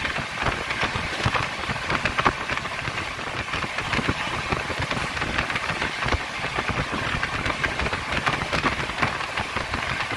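Express passenger train running, heard from inside the coach: a steady rushing noise with dense, irregular rattling and clicking from the wheels and the coach.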